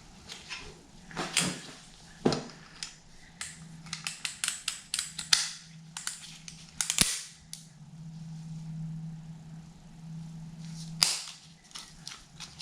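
Repeated sharp taps of a mallet on a piston crown, driving the piston through a ring compressor into an engine cylinder bore. The taps come singly at first, then in a quick run in the middle, with a louder knock near the end. The piston is going in crooked, and a piston ring breaks in the process.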